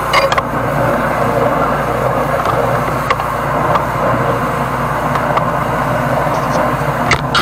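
High-pressure sewer jetter running steadily, its engine-driven pump humming under a constant hiss, with a few short clicks near the start, about three seconds in and near the end.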